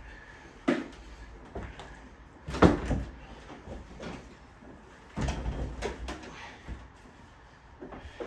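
A window air conditioner unit being handled and set down: a few separate knocks and clunks, the loudest about two and a half seconds in, with another cluster of bumps around five to six seconds.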